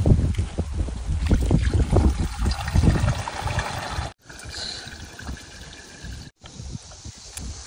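Liquid poured from a plastic can through a cloth into a plastic bucket, splashing and trickling. It is loudest with a low rumble for the first four seconds, then becomes a quieter trickle, and the sound breaks off for a moment twice.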